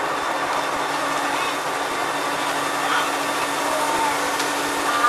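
Bus engine running steadily at cruising speed with a constant low hum, mixed with tyre and road noise, heard inside the bus cabin.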